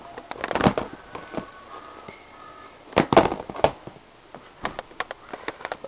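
Handling noise as sneakers and a cardboard shoebox are moved about: scattered clicks, knocks and rustles, busiest about three seconds in, over faint music.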